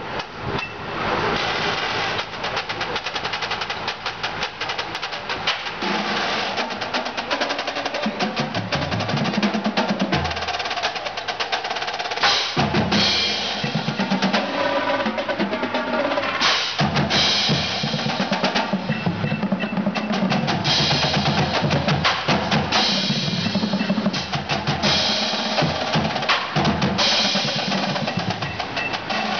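Drum corps battery playing a show piece: fast snare drum patterns and rolls over pitched marching bass drums, with cymbal crashes in bursts from about twelve seconds in.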